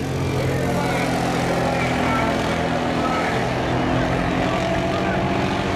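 Small-tire no-prep drag car's engine running hard at high revs as it accelerates down the track, a loud steady tone that holds its pitch.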